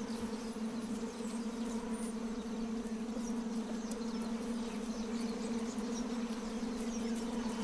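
Steady buzzing hum of a midge swarm: one even drone with an overtone.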